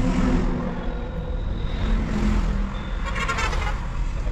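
Steady low motor-vehicle engine and traffic noise.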